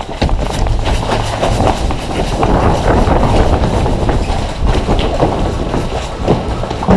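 A player running in airsoft gear: a dense, continuous clatter of footsteps and jostling equipment close to the microphone.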